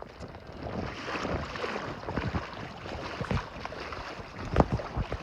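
Water sloshing and splashing in a small pool as waves are pushed through it, with wind on the microphone and a couple of sharp knocks near the end.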